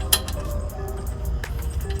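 Background music, with a single sharp metallic clink just after the start.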